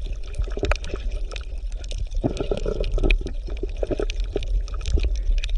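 Underwater bubbling and gurgling, with many small crackling clicks and short popping blips over a steady low rumble.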